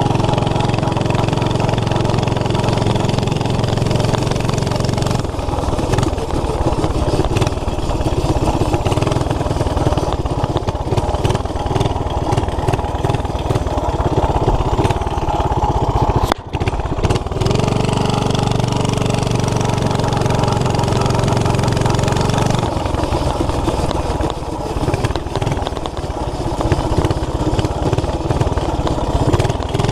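Ungoverned 5 horsepower flathead Briggs & Stratton single-cylinder engine on a mini bike, running loudly through a homemade header, its note changing as the throttle is worked, with a steadier stretch just after the middle. A sudden brief break comes about halfway through.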